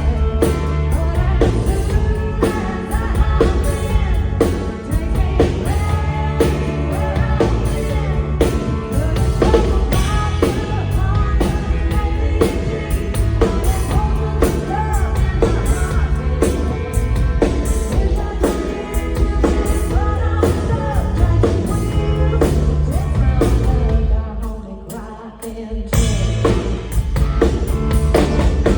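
Pop-country song played live by a full band with drum kit, bass and guitars under a female lead vocal. About three-quarters of the way through, the band drops out for a moment, then comes back in at full level.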